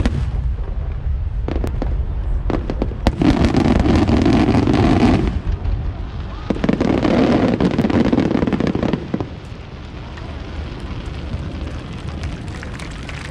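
Tail end of a large aerial fireworks display: scattered sharp reports and crackle over the first few seconds. Then come two spells of dense, louder noise lasting a couple of seconds each, before it drops to a low steady background.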